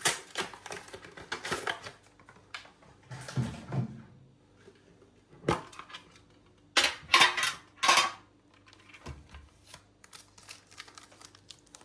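A metal trading-card tin being handled and opened: irregular clattering knocks and clicks of the tin and its lid, with a loud cluster of clatters a little past halfway and only light ticks after.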